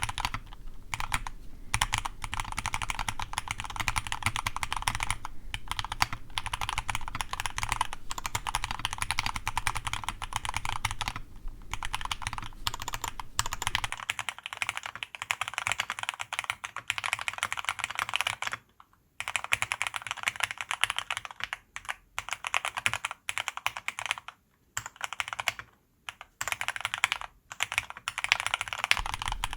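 Fast, continuous typing on a custom aluminium mechanical keyboard with lubed Cherry MX Black (Hyperglide) linear switches and PBT keycaps, a dense stream of keystrokes with a few short pauses in the second half.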